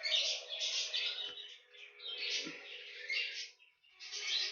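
Small birds chirping in quick, repeated bursts, with a faint steady hum underneath and a soft knock about a second in.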